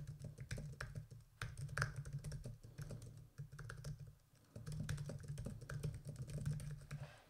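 Typing on a computer keyboard: a quick, irregular run of key clicks with a brief pause about four seconds in.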